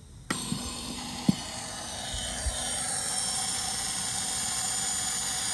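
Motorcycle fairing speakers coming on with a pop, then putting out a steady hiss and whine: the crazy noises that faulty audio wiring feeds through all the speakers. A sharp click sounds about a second in.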